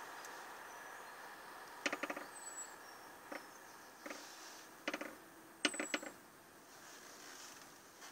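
A rodent scrabbling in a homemade bucket trap: short clusters of sharp clicks and scratches, about five bursts a second or so apart, the loudest just past the middle.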